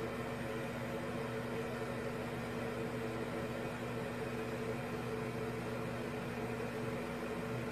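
A steady low hum over a background hiss, unchanging throughout, like a running appliance or fan.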